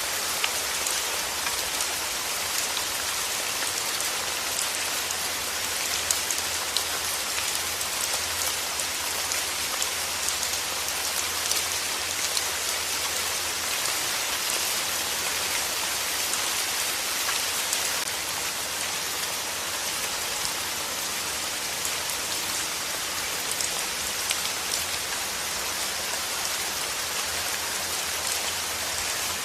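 Steady rain falling: a dense, even hiss with many sharp individual drop ticks scattered through it.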